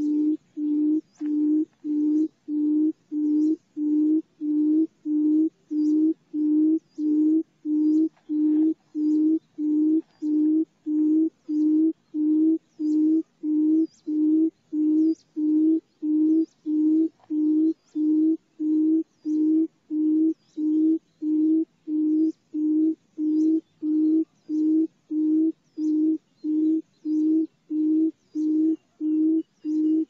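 Barred buttonquail giving its low booming hoot over and over, about three evenly spaced hoots every two seconds. This is the female's advertising call, played as a lure.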